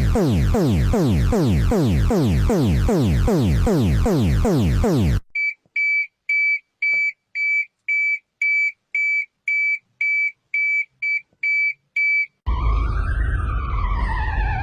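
A series of electronic alarm tones. First a rapid falling sweep repeats about three times a second. About five seconds in it switches to an even high-pitched beep about twice a second, and near the end a siren starts wailing slowly up and down over a low rumble.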